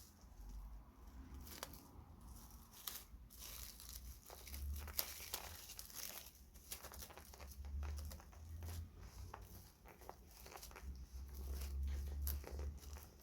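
Faint, irregular crinkly rustling and small clicks of hand work at a workbench, over a low steady hum.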